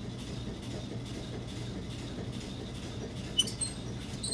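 Steady low background hum, with a light metallic click about three and a half seconds in and another near the end as the compressed-air supply valve on the wall is handled.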